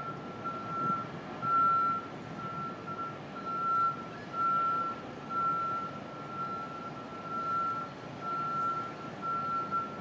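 Backup warning alarm on construction equipment at a building site, beeping over and over at one pitch and heard from a distance over a low city rumble.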